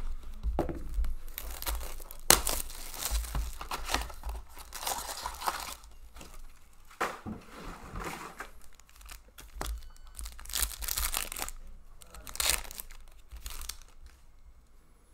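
Plastic shrink wrap being slit and ripped off a sealed box of hockey cards, then card pack wrappers crinkling and being torn open, in irregular rustling rips with one sharp snap a couple of seconds in.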